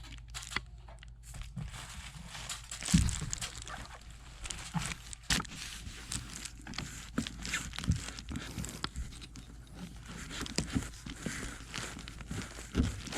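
Scattered knocks, clicks and rustling from hands-on handling work, with a sharper knock about three seconds in, over a steady low hum.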